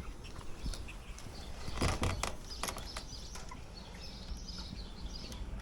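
Meat chickens clucking and peeping while feeding, with scattered sharp taps and a louder thump about two seconds in.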